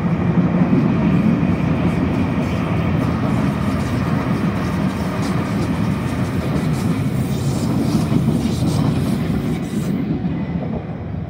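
Sydney Trains Waratah Series 2 (B-set) electric passenger train passing close by, a loud steady rumble with its wheels clicking over the rail joints. The higher clatter drops away near the end as the last cars go by.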